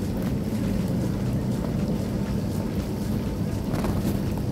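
Whole chicken shallow-frying in hot oil in a metal pan: a steady sizzle over a low steady rumble, with a metal spatula scraping against the pan near the end.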